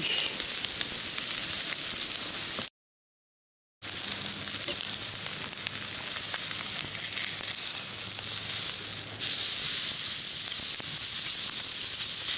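Meat sizzling on a thick 12 mm iron griddle plate over a campfire, a steady frying hiss. The sound cuts out completely for about a second a little under three seconds in, and the sizzle grows louder about nine seconds in.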